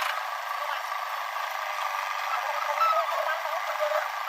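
Steady engine noise from heavy machinery, with wavering faint voices over it.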